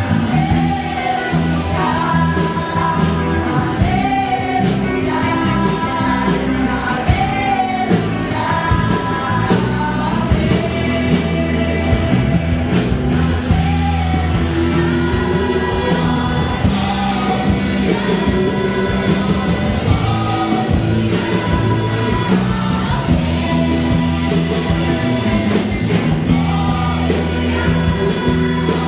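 A vocal group singing a Christian worship song with a band: several voices over bass, guitar and drums.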